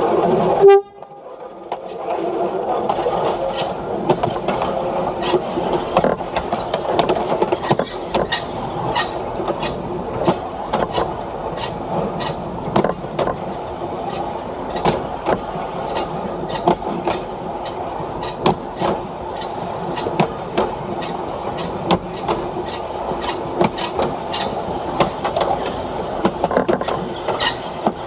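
DP diesel railcar running along the track: a steady running noise with frequent sharp clicks of the wheels over rail joints. A horn sounds at the very start and cuts off abruptly less than a second in.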